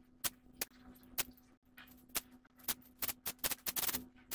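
Irregular sharp clicks and scratchy taps, coming thick and fast for about a second near the end, over a steady low electrical hum.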